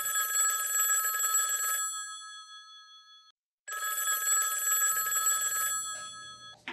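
Old-style telephone bell ringing twice, each ring about two seconds long, with the bell tones ringing on briefly after each. A short click comes right at the end.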